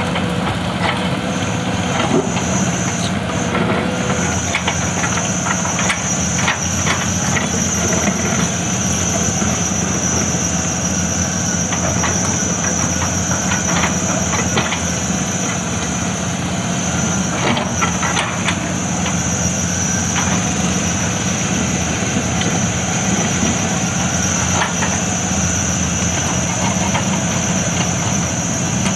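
Caterpillar 320D long-reach hydraulic excavator's six-cylinder diesel engine running steadily as the machine works. A steady high whine runs alongside, and a few sharp clanks come through, the loudest about two-thirds of the way in.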